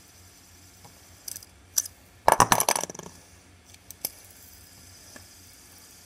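Plastic fidget spinners clicking and clacking as they are handled. There are a few single clicks, then a quick rattling run of clacks about two seconds in lasting under a second, which is the loudest part.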